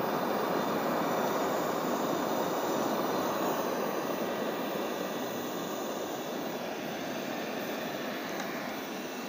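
eufy robot vacuum running on a tile floor: a steady whooshing from its suction fan and spinning brushes, getting a little quieter in the second half.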